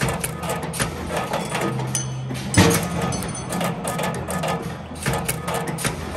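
CNC wire bending machine running: steady servo motor whine under irregular clicks and knocks of the feed and bending head, with one loud clank about two and a half seconds in.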